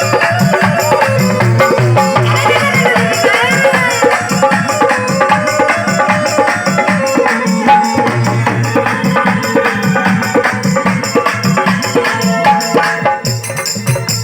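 Instrumental interlude of a Hindi devotional bhajan: a melody over a steady folk percussion rhythm, without singing.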